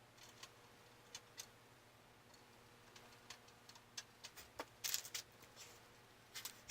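Faint, scattered small clicks and taps of computer parts being handled during a PC build, with a short run of louder clicks about five seconds in.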